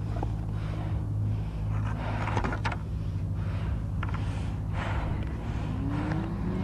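A vehicle engine idling with a steady low hum, under repeated knocks and rustles from the camera being handled.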